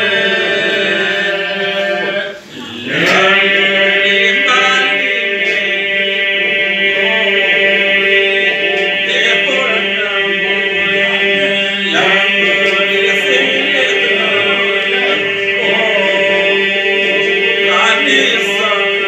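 Men singing an Albanian Lab polyphonic song a cappella: the group holds a steady drone while lead voices carry the melody above it. The singing breaks briefly for breath about two and a half seconds in, then resumes.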